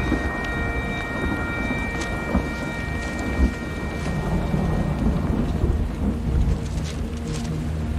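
Heavy rain falling with low rolling thunder that swells and eases.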